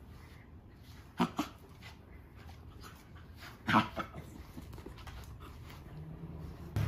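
Welsh corgi grumbling and whining in a few short bursts, two close together about a second in and one just before the four-second mark, while being held and brushed against its will.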